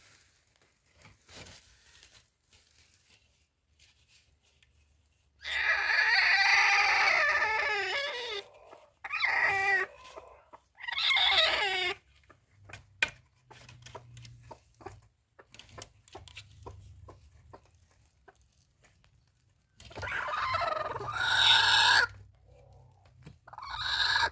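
Rooster crowing: a long crow about five seconds in, two shorter calls soon after, and another crow near the end.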